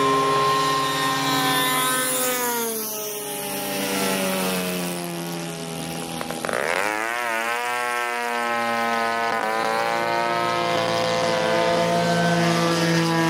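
Radio-controlled model warbird plane's engine running at high revs as it flies past. The pitch drops about two seconds in, then a closer low pass about six and a half seconds in brings a sudden jump in loudness and pitch that falls away as the plane goes by.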